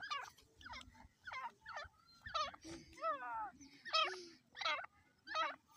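Grey francolin (teetar) giving a series of about a dozen short chirping calls with gaps between them, some sliding down in pitch.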